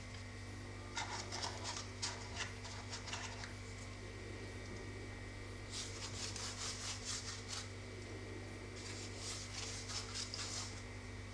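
A pastry brush swept in quick, scratchy strokes across a sheet of filo pastry, spreading the oil-and-butter mixture, in two runs during the second half. Before that comes soft rustling as the cheese-filled filo is rolled and set into a paper muffin case. A steady low hum runs underneath.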